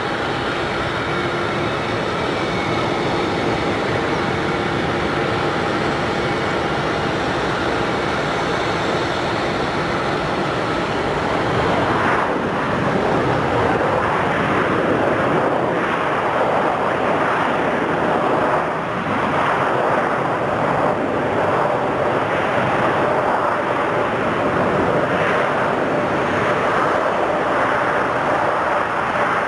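Boeing 787-8 jet engines during the landing: a steady whine with several held tones at first, then from about twelve seconds in a louder, wider rushing roar that swells and fades in waves.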